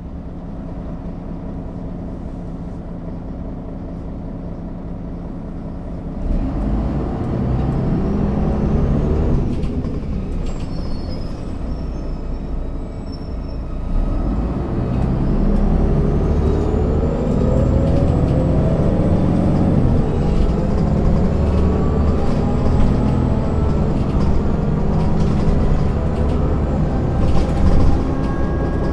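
1998 MAN NG 262 articulated city bus's diesel engine idling steadily, then pulling away about six seconds in. The engine note climbs and drops back as it accelerates through the gears, then climbs again from about halfway through.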